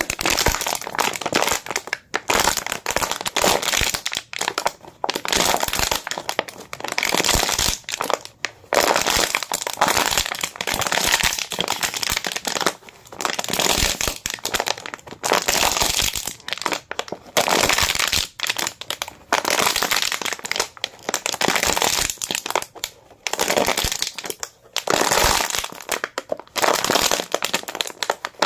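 Thin plastic water bottle being squeezed and crushed by hand, its walls crackling and crinkling in repeated bursts with short pauses between squeezes.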